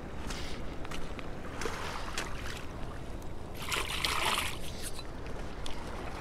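Hands rinsing in shallow river water at the shore. A burst of splashing comes about four seconds in, with lighter splashes a couple of seconds before, over a steady low rush of water.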